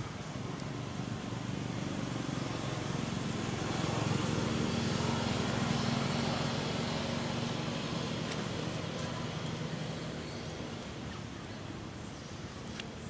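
A motor vehicle passing by: a low engine hum with road noise that builds over the first few seconds, peaks around the middle and slowly fades away.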